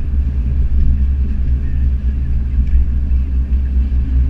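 Steady low drone of a car cruising at speed, heard from inside the cabin: engine and tyre noise as one even rumble.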